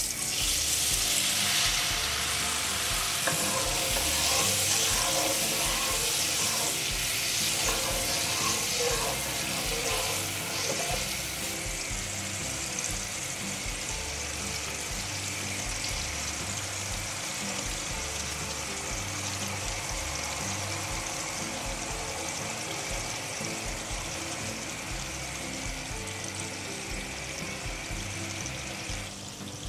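Hot oil and spice paste in a frying pan sizzling loudly as water is poured in on a high flame. It settles after a few seconds into a steady, slightly quieter sizzle.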